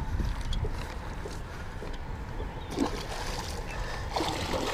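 A hooked muskie splashing and swirling at the water's surface beside a small boat during the fight, in several short splashes over the last couple of seconds. Wind rumbles on the microphone.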